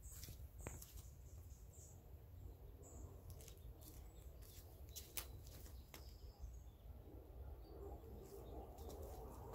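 Near silence outdoors: a faint low rumble, with a few short, high bird chirps in the first three seconds and scattered light clicks.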